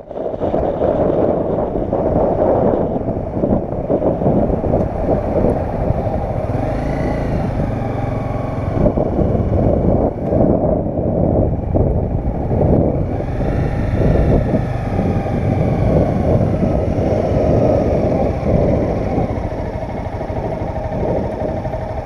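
Honda CBR300R's single-cylinder engine running while ridden at low speed, its pitch rising and falling a few times with the throttle and settling lower and quieter near the end as the bike slows.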